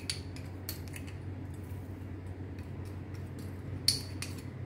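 A few light clinks of a steel spoon against a steel mixing bowl as salt is spooned in, the sharpest about four seconds in, over a steady low hum.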